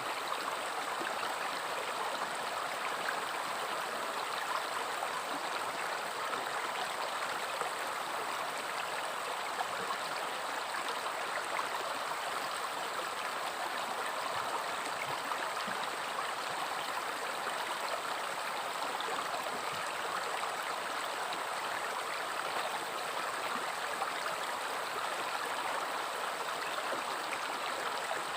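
River water flowing over rocks in a steady, even rush with a light babble.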